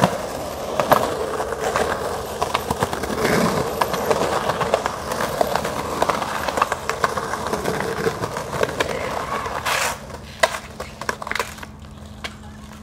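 Skateboard wheels rolling over rough concrete, with scattered sharp clacks of the board. A louder crash comes just before 10 s, and a few more clacks follow as the board hits the ground after a bail.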